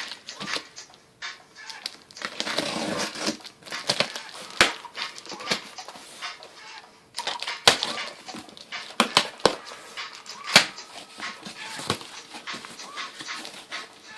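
A cardboard shipping box being opened and its contents unpacked by hand: irregular rustling and scraping of cardboard and packaging, broken by sharp snaps and clicks.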